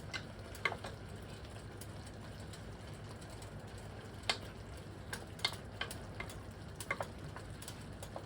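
Stir fry with sauce simmering in a hot pan: scattered sharp pops and ticks, a few close together, over a low steady hum.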